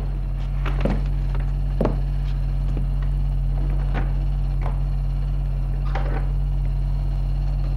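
Steady low hum with irregular clicks and knocks, about one every second or so.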